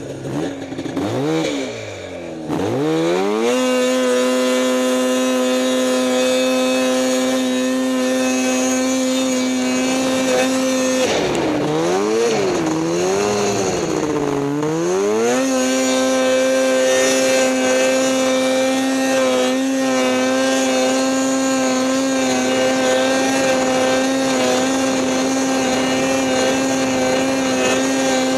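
Snowmobile engine running hard at steady high revs while riding through powder. The pitch holds level most of the time, but twice the revs swing down and back up in quick wavering dips, once near the start and again around the middle.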